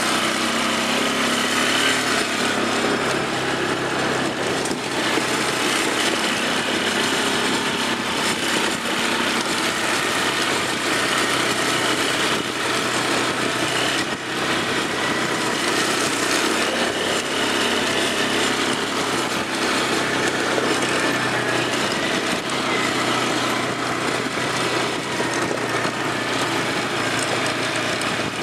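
An ATV's engine running steadily as it is ridden along a dirt trail, its pitch wavering a little up and down.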